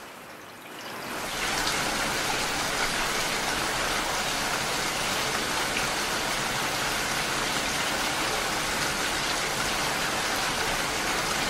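Heavy rain falling, a dense, even hiss. It starts fainter and swells to full strength over the first second and a half, then holds steady.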